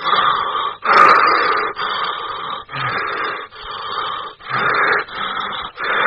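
Heavy, raspy breathing: a string of rough inhales and exhales, each about half a second to a second long with short breaks between, used as a scary horror breathing sound effect.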